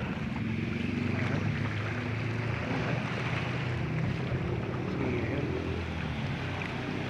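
Seawater lapping and washing around shoreline rocks, with steady wind rumbling on the phone's microphone.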